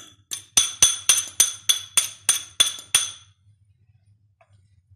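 A metal fork clinking against a glass bowl, knocking the last of the yogurt out of it. About a dozen quick ringing taps, three to four a second, stop about three seconds in.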